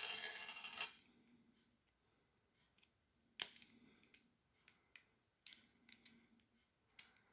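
Small clicks and scraping from handling the carbon brush and its brush holder in a Makita HR2020 SDS hammer drill during a brush replacement: a short scraping rustle at the start, then a few sharp single clicks spread over the following seconds.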